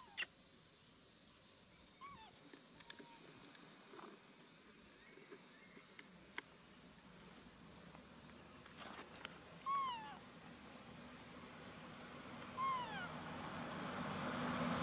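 A steady high insect drone, cicadas or crickets, with two short falling squeaks from a baby macaque about ten and thirteen seconds in.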